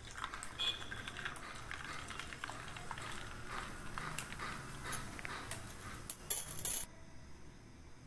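Soda water poured into a glass of juice and crushed ice: a crackling fizz with many small clinks of ice against the glass, a louder burst shortly before it stops abruptly near the end.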